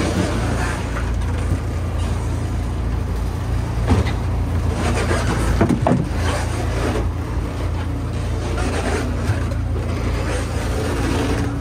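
Fishing boat's engine running steadily, a low rumble under wind and water noise, with a few knocks from gear on deck near the middle.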